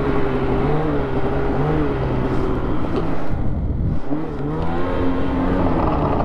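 Polaris SKS 146 snowmobile engine running under way, its pitch wavering with the throttle. It eases off about three seconds in and revs back up a second later.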